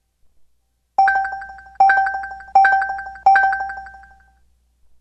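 Four identical bell-like chime strokes about three-quarters of a second apart, each ringing and fading, all at the same pitch. It is a quiz-answer sound effect, one chime for each check mark as it appears on the chart.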